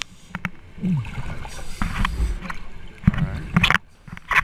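Underwater sound of a scuba diver breathing: hissing, bubbling exhalations from the regulator, with a few sharp knocks.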